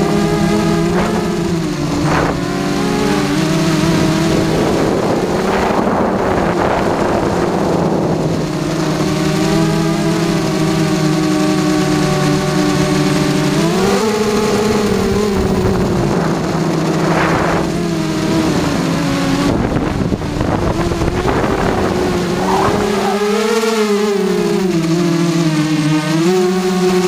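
A QAV carbon-fibre racing quadcopter's electric motors and propellers whining in flight, heard from its onboard camera. The pitch climbs with throttle about halfway through and wavers up and down near the end, and several rushes of wind noise cut across it.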